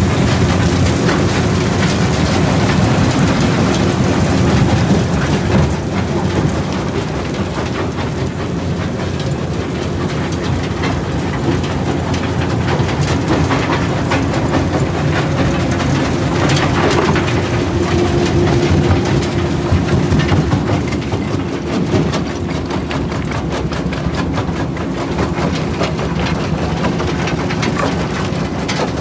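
McCloskey J40 jaw crusher crushing construction rubble: steady machine noise with a continuous clatter of broken concrete and stone rattling through the feeder and falling onto the conveyor belt.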